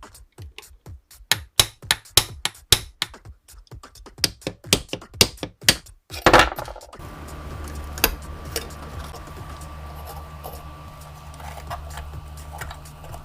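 Irregular light hammer taps for about six seconds. About six seconds in, a small electric motor starts with a loud burst and then runs steadily with a low hum and occasional ticks.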